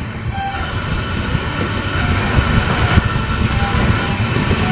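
Passenger train running along the track: a steady rumble of wheels and carriages, growing slowly louder.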